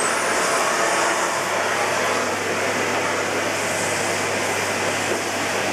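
Miele S256i canister vacuum cleaner running steadily: an even rush of air over its motor, with a faint low hum.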